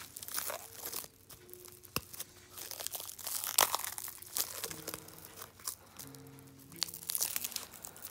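Clear plastic wrap crinkling and tearing in irregular handfuls as it is pulled off a plush toy. A faint melody of held notes plays behind it.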